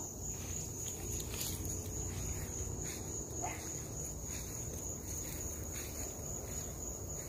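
Crickets chirping in a continuous, steady high trill, over a low, steady rumble.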